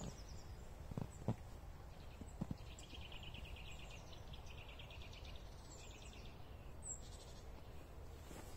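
Small birds calling: several quick chattering trills of rapidly repeated high notes and a few thin, high descending calls, faint over a quiet outdoor background. A couple of soft crunches of footsteps in snow in the first two seconds.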